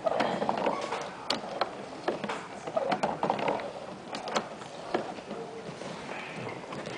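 Homemade, hand-cranked sewing machine built from cams, string linkages and aluminium hanger wire, being turned over. Its mechanism clicks and clunks irregularly.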